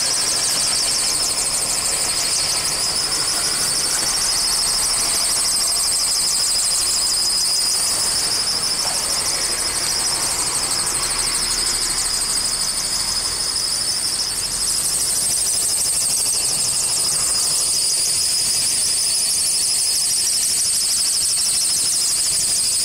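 Toyota Vios engine drive belt squealing continuously at idle: a loud, high-pitched shriek with a rapid flutter. It is a recurring belt fault that the dealer has not yet fixed.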